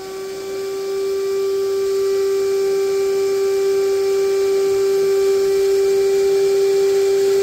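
Hercules battery-powered shop vac running on its battery, its hose nozzle held in pond water and sucking it up: a steady motor whine over a rushing hiss. It builds up over about the first second, then holds one even pitch.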